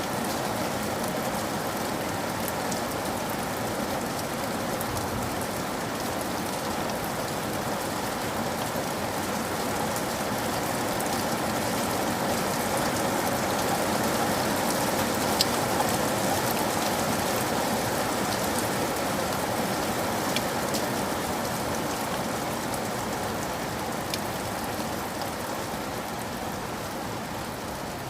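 Steady rain falling on a surface, a dense even hiss dotted with the ticks of individual drops; it swells slightly about halfway through and eases toward the end.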